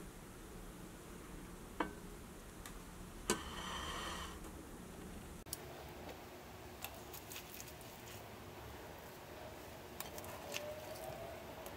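Faint handling sounds with a few sharp clinks of metal tongs against a stainless steel steamer pot as steamed fish roe is lifted out onto a plate. The loudest clinks come about two seconds in and again about three seconds in, with lighter ticks later on.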